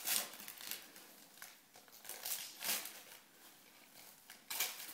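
Gift wrapping paper rustling and tearing in short, irregular bursts as a present is unwrapped by hand.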